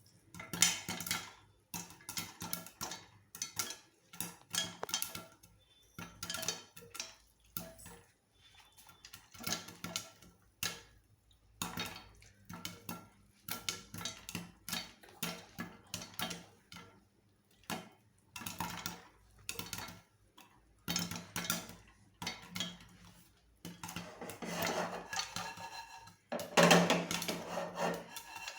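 Popcorn kernels popping inside a pressure cooker closed without its gasket or weight, in irregular bursts of sharp pops, with the metal cooker rattling as it is shaken to and fro. The popping and rattling come thickest in the second half.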